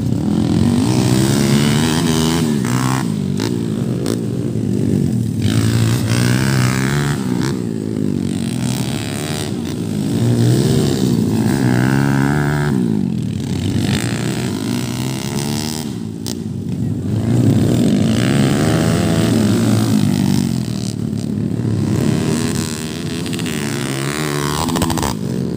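Underbone racing motorcycles running hard, their engines repeatedly climbing and dropping in pitch as they rev and shift.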